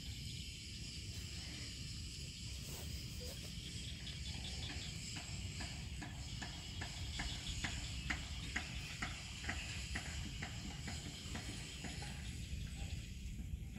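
Outdoor field ambience: a steady high insect hiss over a low wind rumble, with a run of regular clicks, about three a second, from about four seconds in until shortly before the end.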